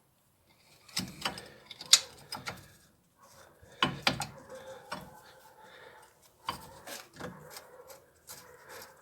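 Irregular metallic clinks, knocks and scrapes from handling a car's brake caliper parts and tools, with the sharpest knocks about two seconds and four seconds in.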